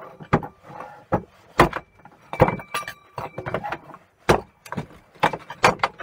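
Claw hammer striking and knocking apart a wooden spotlight with brass fittings on a metal bench: about eight sharp blows at uneven intervals, a few with a short metallic ring.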